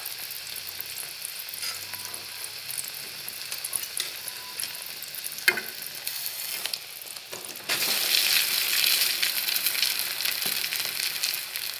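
Egg frying in hot fat in a metal pan, a steady sizzle with a single sharp click about five and a half seconds in. About eight seconds in the sizzle suddenly grows louder as cold cooked rice is tipped into the hot fat.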